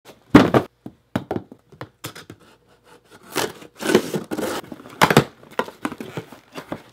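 Cardboard shipping box being handled and cut open: a loud thump near the start, then knocks and scrapes, and a knife slitting the packing tape along the box's seam with a long tearing rasp in the middle, followed by another sharp knock about five seconds in.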